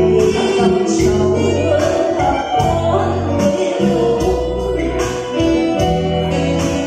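A woman singing a Vietnamese ballad live into a microphone, backed by an amplified band of electric keyboard and guitar with a steady bass line.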